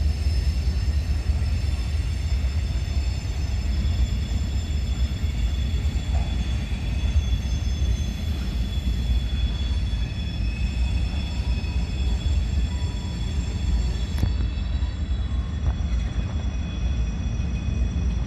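Freight train rolling past with a steady heavy rumble, with several faint high steady tones ringing above it.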